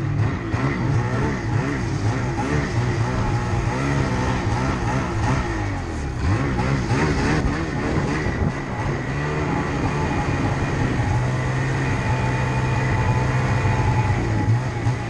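Snowmobile engine running under throttle while the sled is ridden through deep snow. The pitch rises and falls as the throttle is worked, then holds steadier for a few seconds near the end.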